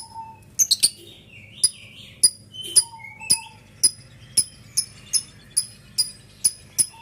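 Lovebird chattering in its long 'ngekek' song: a steady run of sharp, high chirps about two a second, with lower squeaky notes in between.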